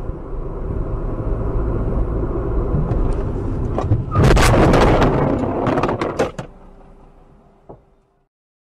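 Car driving with steady road and engine rumble, then about four seconds in a loud collision with a van: a roughly two-second impact with several sharp bangs, dying away afterwards.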